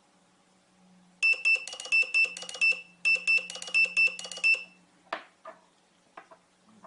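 Melody horn module sounding a quick tune of short, high, beeping notes, played as a phrase and then repeated, followed by a couple of sharp clicks.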